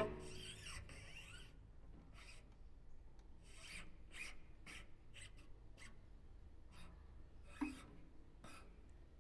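Quiet, rasping scrapes and rubs on a cello, a string of short irregular strokes played as noise rather than notes, with one small knock about three-quarters of the way through.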